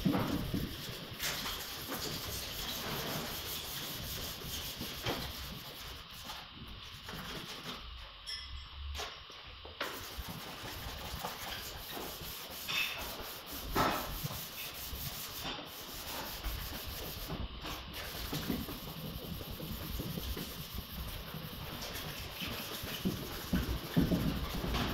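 Hand sanding a primed car bonnet: abrasive paper on a sanding pad rubbing back and forth over the primer in a rasping hiss that swells and fades with each stroke, with a couple of short knocks, the sharpest near the end.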